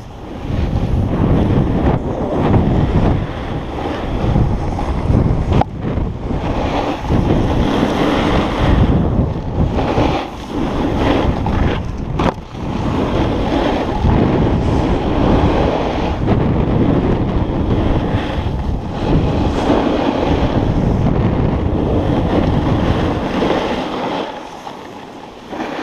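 Wind buffeting the microphone mixed with a snowboard's base and edges rushing and scraping over packed snow during a fast run. Two short dips break it about six and twelve seconds in, and it quietens near the end as the board slows.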